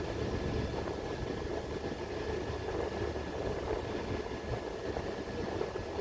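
Class 375 Electrostar electric multiple unit standing at the platform, its onboard equipment giving a steady hum with a faint high whine.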